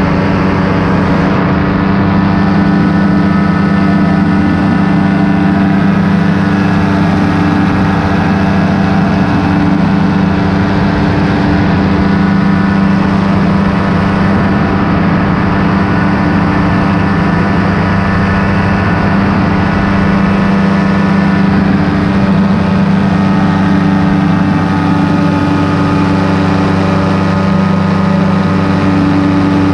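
Paramotor engine and propeller running steadily in flight, a loud, even engine note that holds one pitch throughout.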